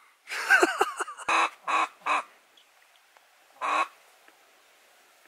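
Duck quacking: a longer drawn-out call, then three short quacks in quick succession and a single quack over a second later.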